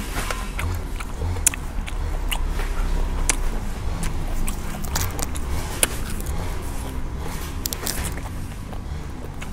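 Close-up chewing of boiled snail meat and fresh lettuce, with frequent wet mouth clicks and smacks over a low steady drone.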